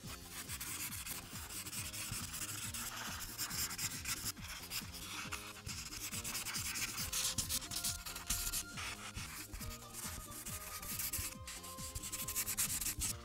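Felt marker tip rubbing and scratching on paper in rapid repeated strokes, filling in a large area of a coloring page.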